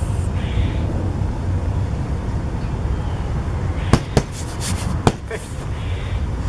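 Electric air pump running with a steady low hum as it inflates an inflatable float tube, with a few sharp clicks from handling the valve and tube about four to five seconds in.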